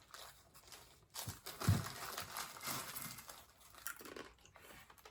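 A plastic food packet crinkling and rustling as it is handled and shaken, with the dry food inside rattling, and a low thump about a second and a half in.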